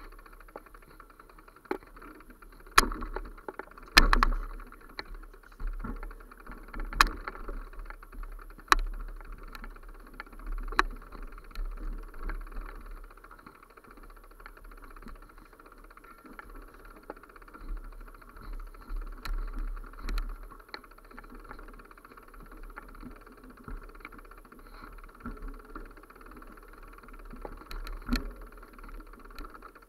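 Irregular rattling and sharp knocks from a camera being carried along a bumpy dirt forest trail, over a steady low rumble. The two loudest knocks come about three and four seconds in.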